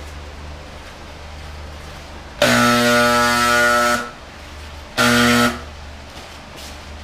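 Handheld electric paint sprayer (a power painter) buzzing loudly in two trigger pulls while spraying a coat of Plasti Dip. The first pull starts about two and a half seconds in and lasts about a second and a half; the second, shorter one lasts about half a second. A large ventilation fan hums steadily underneath.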